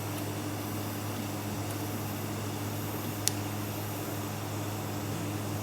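Welding equipment running with a steady electrical hum and hiss, with one sharp click a little over three seconds in.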